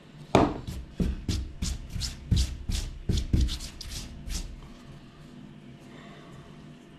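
Hands handling the folding knife and its plastic packaging: a quick run of crinkles, taps and light knocks that stops about four and a half seconds in.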